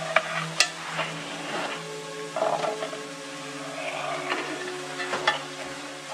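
Food sizzling as it cooks, with a few sharp clicks and scrapes of a utensil against metal, over soft background music with held chords.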